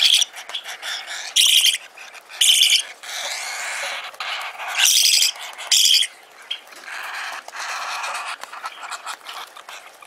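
Nestling parakeet chicks giving harsh, hoarse begging calls while being spoon-fed: five loud calls of about half a second each, with quieter continuous calling between them.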